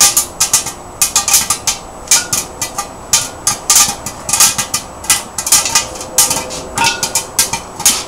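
Popcorn popping in the kettle of a 1955 Manley model 67 popcorn machine: rapid, irregular sharp pops, several a second, from a kettle in full pop.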